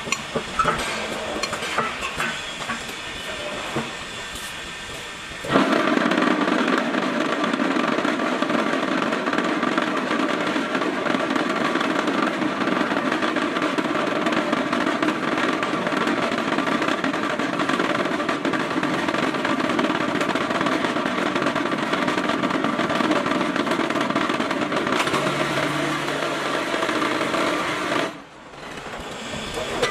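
QT4-35 manual concrete block machine, a few metal clanks and then its mould vibration switching on about five seconds in: a loud, steady, fast rattle that cuts off abruptly near the end, the vibration compacting concrete in the block mould.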